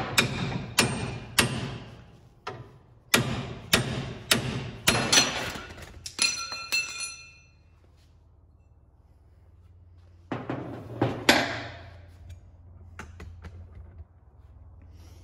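Hammer blows on a pickle fork wedged between a truck's tie rod end and steering knuckle, sharp metal-on-metal strikes driving the fork in to pop the tapered stud loose. The strikes come in quick succession for about seven seconds, one of them leaving a ringing tone, then stop; a few more follow about ten to eleven seconds in.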